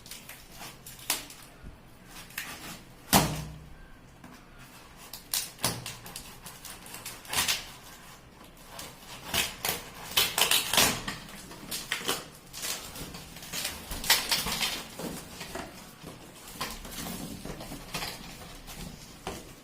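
Unpacking a water filter by hand: an irregular string of knocks, clicks and clatters as the box and the filter's parts are handled and set down, the loudest knock about three seconds in.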